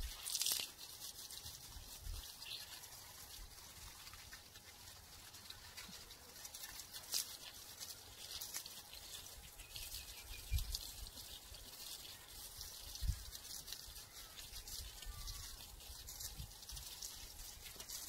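Water from a garden hose spraying onto shrubs and the ground: a steady hiss with a fine patter of drops on leaves. A couple of low thuds come near the middle.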